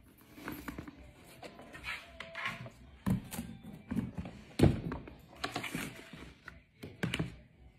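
Handling noise from a Louis Vuitton OnTheGo tote and its cardboard box as the bag is lifted and set down: rustling with several knocks and thumps, the loudest a little past halfway.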